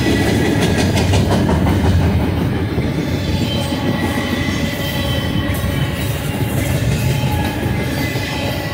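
Double-stack intermodal well cars rolling past: a steady loud rumble of steel wheels on rail, with a thin high wheel squeal running over it.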